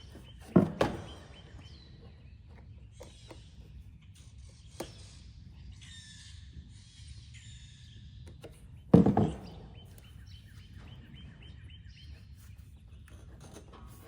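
Two loud knocks, each with a short clatter, about half a second in and again about nine seconds in, as parts or tools are handled while a fuel filter is fitted on the mower. Birds chirp in the gaps.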